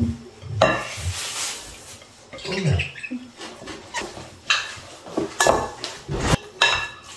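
Soaked bulgur wheat and raw seasoned ground meat being mixed together in a bowl for kibe. Irregular knocks against the bowl come with scraping and wet mixing noises, and the knocks come closer together in the second half.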